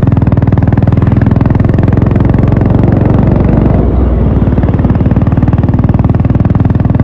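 Honda H'ness CB350's single-cylinder engine and exhaust running steadily under way, thudding in quick even pulses, with a brief dip in the sound about four seconds in.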